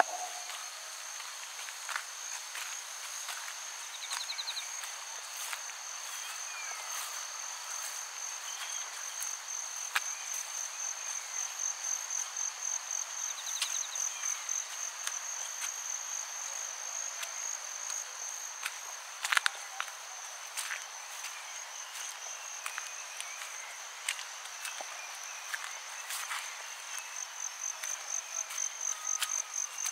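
Crickets chirping in a steady high trill that pulses in quick beats, with faint bird calls and soft footstep clicks. A sharp double click about two-thirds of the way through is the loudest sound.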